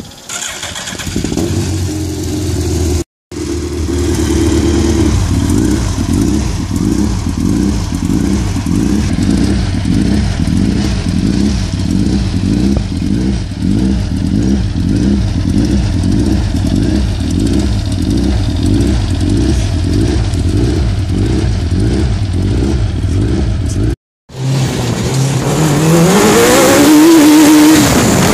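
Suzuki Hayabusa second-generation 1340 cc inline-four engine in an off-road buggy idling steadily, its note wobbling evenly about one and a half times a second. Near the end the engine revs up, its pitch climbing as the buggy accelerates away.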